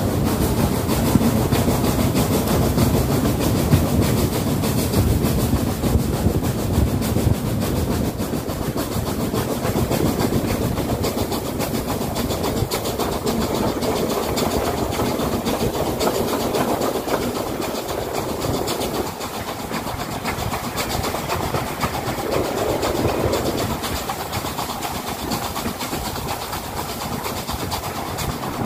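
Heritage railway passenger coach running along the track, heard from an open carriage window: wheels on the rails with wind rush, getting gradually quieter.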